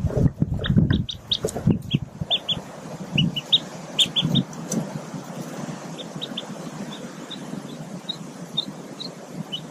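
Newly hatched mallard ducklings peeping in short, high notes, many in quick clusters over the first five seconds, then fainter and more spaced out. Louder low sounds come with the peeps in the first two seconds.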